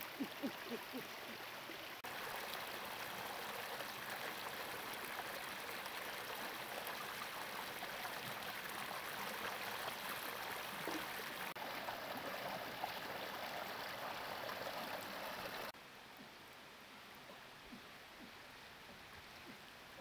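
Shallow stream water rushing and splashing over rocks, a steady even flow that drops suddenly to a softer flow about three-quarters of the way through.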